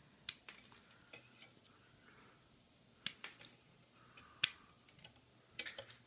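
Wire cutters of a Leatherman Juice S2 multi-tool's pliers snipping through thin wire: four sharp clicks a second or more apart, with fainter ticks of the tool being handled, the loudest snip about four and a half seconds in.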